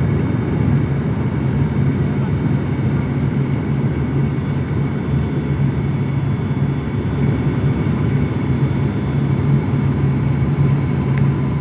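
Steady engine and airflow drone inside an airliner's cabin during the landing approach, with a strong low hum underneath.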